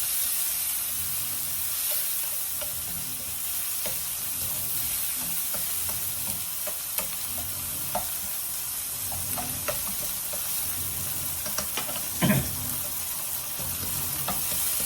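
Onion, garlic and chopped tomato sizzling in hot cooking oil in a pan, with a spatula stirring and scraping, giving scattered light clicks and a louder knock about twelve seconds in.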